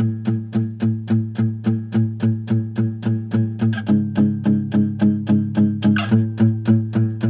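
Music: a guitar plays an intro of evenly repeated plucked notes, about four a second, and the chord changes about four seconds in.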